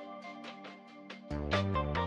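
Instrumental background music with a light beat; the bass drops out and comes back in a little past halfway.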